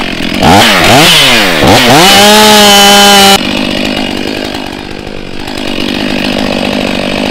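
Two-stroke chainsaw revved up and down several times, then held at full throttle on a steady high pitch. About three seconds in, the chain bites into the tree trunk and the clean engine note gives way to a rougher, lower cutting sound as it saws the felling notch.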